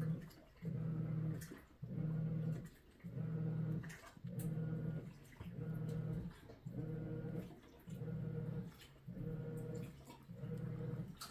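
Washing machine running its wash cycle: a low motor hum that starts and stops in even strokes, a little more than one a second.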